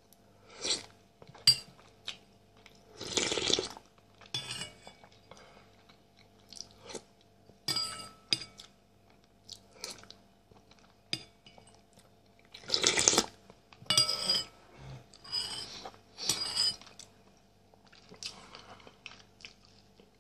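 Eating soup with a metal spoon: the spoon clinks against the bowl, with sipping and chewing sounds in irregular bursts, the longest about three seconds in and again around thirteen seconds.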